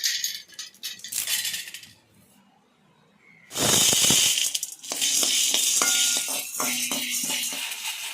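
Metallic rattling and clinking of kitchenware, coming in bursts with a short pause in between, loudest a little past halfway.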